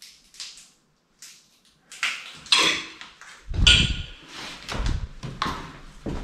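Footsteps crunching and scuffing on a gritty, debris-strewn tiled floor: short clicks and scrapes with heavier heel thuds, roughly one step a second, starting about two seconds in.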